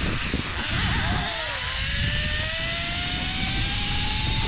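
Zipline trolley pulleys running along the steel cable, a whine that rises slowly in pitch as the rider picks up speed, over a heavy rush of wind on the microphone.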